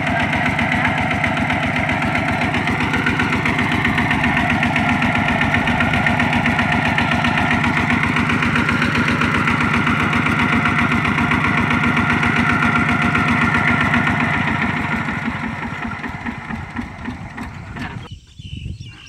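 Kubota two-wheel walking tractor's single-cylinder diesel engine idling with an even, rapid thud while the machine is stuck. Near the end it dies away and cuts off.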